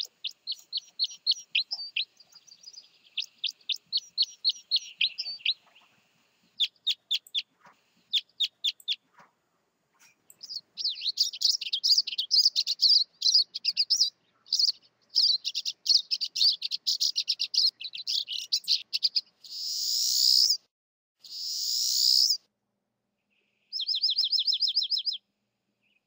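Bird song. First come quick, repeated, warbled notes from a purple finch. After a brief pause, pine siskins take over with a dense high twittering, then two long rising buzzy notes, then a short fast trill near the end.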